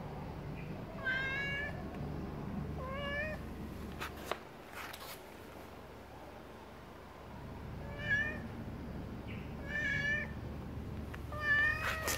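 Grey tabby cat meowing five times, short calls a second or two apart with a longer pause in the middle.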